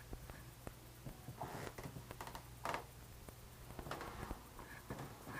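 Faint, scattered light clicks and knocks with a few short rustling swishes, over a low steady hum.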